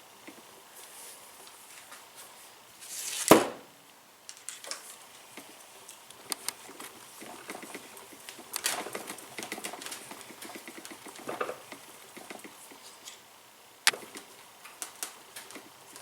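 Hands working with metal tools and shock parts on a bench: scattered clicks and taps, with one loud knock about three seconds in and a sharp click near the end.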